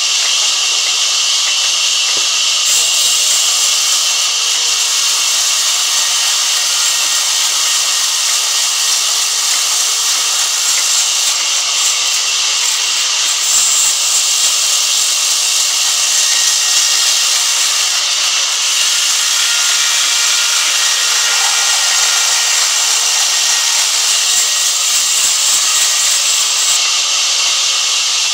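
Sawmill band saw ripping a long wooden plank along the grain: a loud, steady hiss of the blade cutting through the wood.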